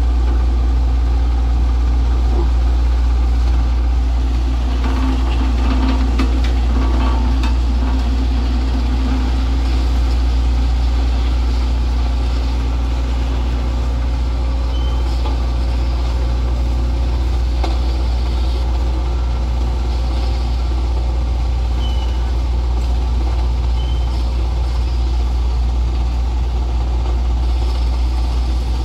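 Diesel engine of a BOMAG single-drum road roller running steadily as it rolls over a dirt road, with a strong, constant low drone.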